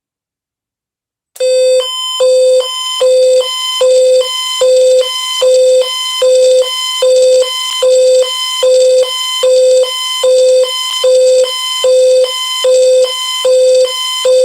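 Amber Alert attention tone on the radio: a buzzy beep near 500 Hz repeating about three times every two seconds. It starts abruptly about a second and a half in and announces a relayed child abduction alert.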